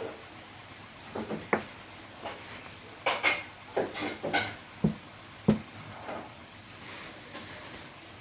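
Irregular light knocks and short rustles of leaves being picked up and set down one at a time as they are counted.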